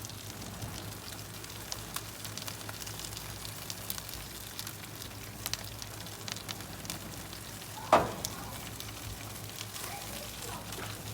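Food sizzling on a barbecue grill, with scattered sharp crackles and pops, and a single loud thump about eight seconds in.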